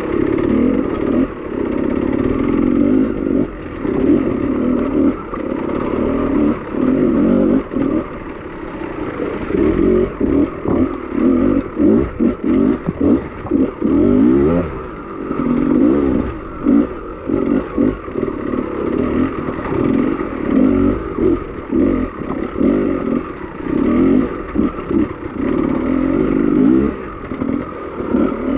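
Beta enduro motorcycle engine revving under load as the bike climbs over wet rock. It runs fairly steadily at first, then breaks into rapid on-off throttle bursts for most of the rest, with clattering and scraping over the rocks.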